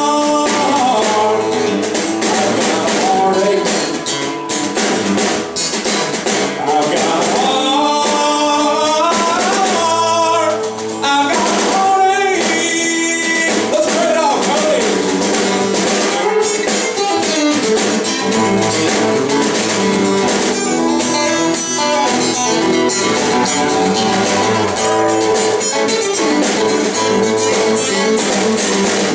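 Live acoustic country music: acoustic guitars strumming through an instrumental break, with a melody line picked over the top.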